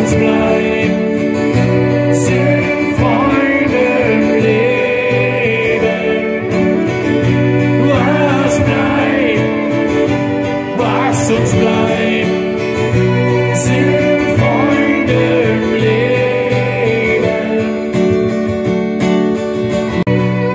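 Live acoustic band performance: a man singing over acoustic guitar and violin.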